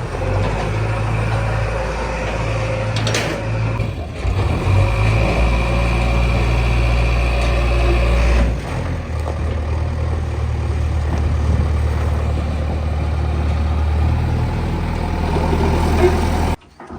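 Diesel engine of a JCB digger running steadily with a deep rumble, its note shifting with load about four and eight seconds in, then cutting off abruptly near the end.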